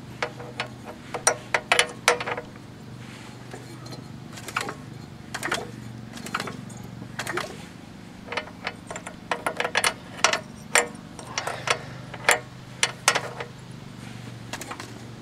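Sharp, irregular clicks in quick clusters as a Craftsman mower's small engine is turned over by hand during a spark test, with the spark plug grounded against the engine to check a suspect ignition coil.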